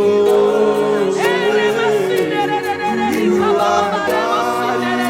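Church worship singing by a group of voices, with long held notes and voices sliding and wavering in pitch over them.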